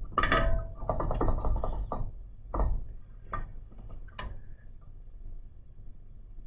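Soldering work on a new PS5 HDMI port: a short hissy crackle for the first second or two, then a few separate clicks and taps of tools on the board.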